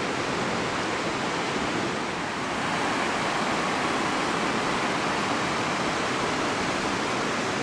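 Steady rushing of river water flowing below, an even hiss-like wash of sound with no breaks.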